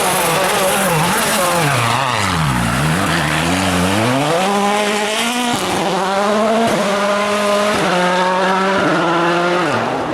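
A World Rally Car's turbocharged 1.6-litre four-cylinder engine at full effort. Its pitch falls off hard to a low point about two and a half seconds in, then climbs again. Through the second half it shifts up in quick abrupt steps as the car accelerates away.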